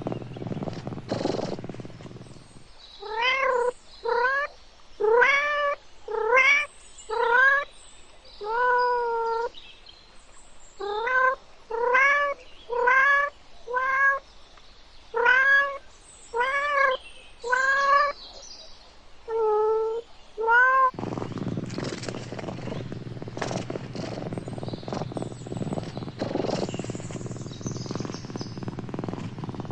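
A cat meowing about fifteen times in a row, short rising-and-falling meows about a second apart, with a low, steady purr before the meows begin and again after they stop.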